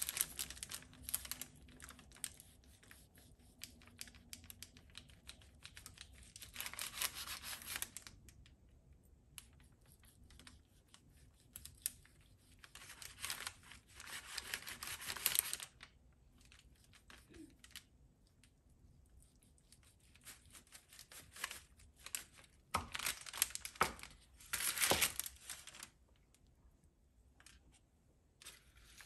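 Kitchen knife sawing through a sesame-seed-coated roll of chewy halwa on wax paper: scratchy, scraping strokes in four spells of a few seconds each, with the paper crinkling under it.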